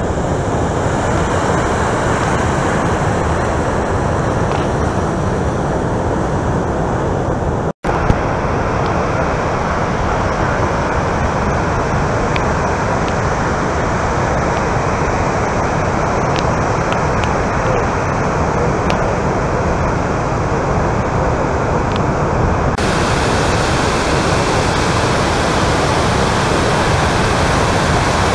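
Steady roar of heavy surf from large breaking waves and rolling whitewater, a constant rushing noise. The sound cuts out for an instant about eight seconds in.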